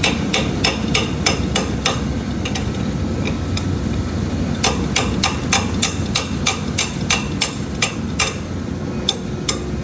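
Hammer tapping repeatedly on a clogged valve in a cooling-tower sand filter's discharge line to knock loose the packed sand, about three sharp strikes a second in two runs with a pause of about two seconds between, and two more strikes near the end. A steady low machinery hum runs underneath.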